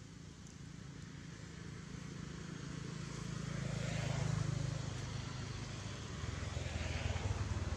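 A motor vehicle's engine running nearby, a steady low hum that grows louder over the first few seconds and stays loud.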